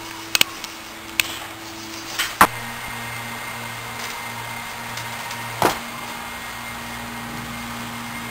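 Sharp knocks and thumps of a person climbing onto a wooden porch railing and jumping down. The loudest comes about two and a half seconds in and another near six seconds, over a steady low hum.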